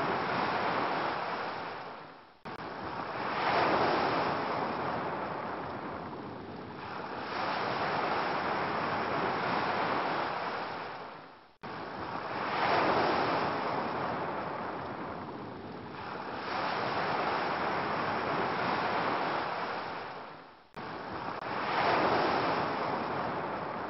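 Ocean surf: waves swelling and washing back every few seconds. The recording drops out and restarts abruptly three times, about nine seconds apart, as the track loops.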